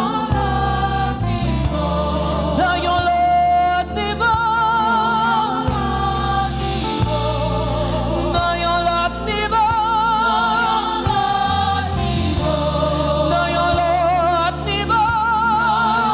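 Gospel praise-and-worship music: voices holding long notes with vibrato over a band with a steady bass line.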